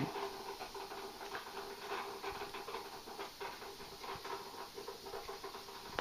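Faint rustling and light scratching with small clicks from an African grey parrot hanging upside down and swinging from a hand-held toy, over a faint steady hum.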